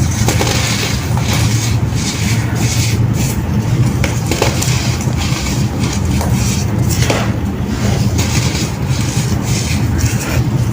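Crunchy pressed baking soda pieces being crushed and crumbled, a run of irregular crackles and crunches over a steady low rumble.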